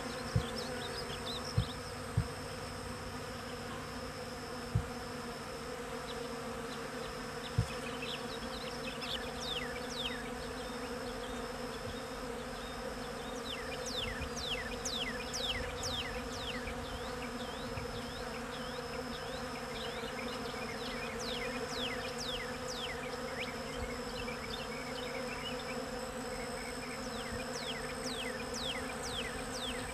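Swarm of bees buzzing in a steady, even hum as they work flowering corn tassels. A few sharp knocks come in the first seconds. From about eight seconds in, clusters of quick, high falling chirps sound over the buzzing.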